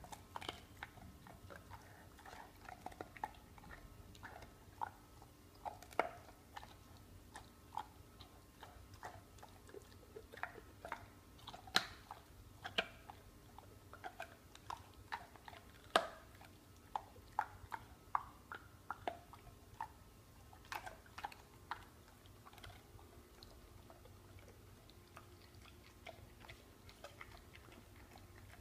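Pit bull chewing a bone: irregular sharp cracks and clicks of its teeth and jaws on the bone, a few each second, growing sparser near the end.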